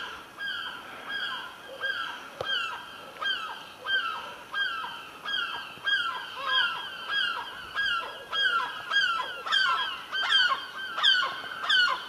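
Seagulls calling over and over as they circle overhead: a steady series of short, falling cries, about two a second, growing louder and more crowded near the end.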